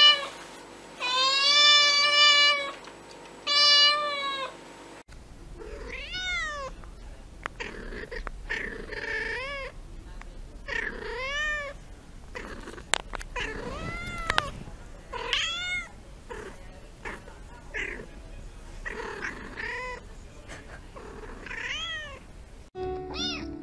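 Cats meowing: a young black-and-white cat gives two long, loud meows. Then a different cat, close to the microphone, meows over and over, each meow rising then falling in pitch, about one every second or two.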